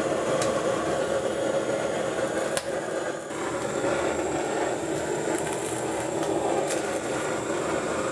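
Handheld butane torch flame hissing steadily as it singes the skin of a plucked goose, with a few sharp clicks about half a second in, near the middle and toward the end.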